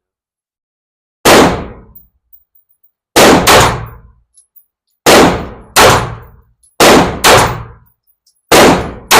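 Springfield compact pistol being fired, about nine shots at an uneven pace, some in quick pairs about half a second apart, each with a short echoing tail.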